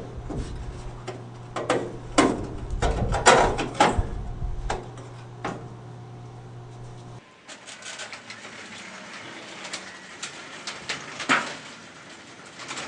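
A series of sharp clicks and knocks, like small objects being handled, over a low steady hum; about seven seconds in the hum stops and the clicks become fainter and sparser.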